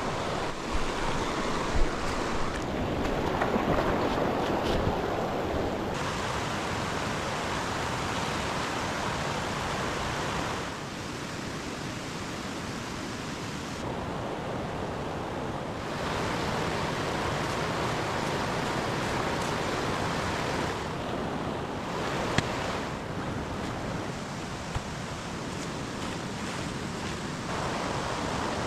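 Mountain stream rushing over stones: a steady water noise that shifts in level and tone every few seconds, with a few light knocks.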